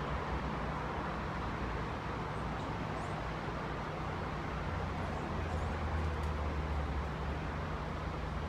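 Steady outdoor background hum of distant traffic, with a few faint, short high chirps about three seconds in and again about five and a half seconds in.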